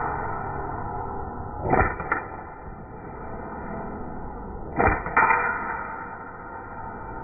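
Airsoft pistol fired in two quick pairs of shots, a double tap about two seconds in and another about five seconds in, over steady background noise.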